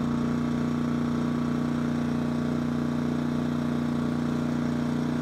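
AiPower SU2000i inverter generator's small 79cc Yamaha engine running at a steady, even pitch while it powers a heat gun on its 750-watt setting.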